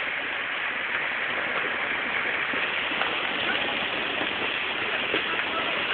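Heavy downpour of rain mixed with small hail, a steady dense rush of falling water.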